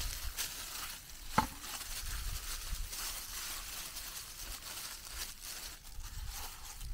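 Plastic disposable gloves crinkling and squelching as hands rub a wet saffron marinade into raw chicken, in soft irregular strokes. A single sharp click or knock sounds about a second and a half in.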